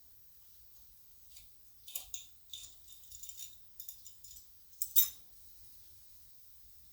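Small hard objects clinking and tapping, a quick irregular run of light metallic and glassy clicks with the sharpest one about five seconds in.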